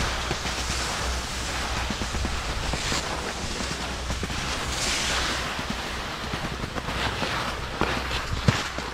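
Skis sliding over snow in a steady hiss, mixed with wind rushing across the microphone as the skier moves downhill.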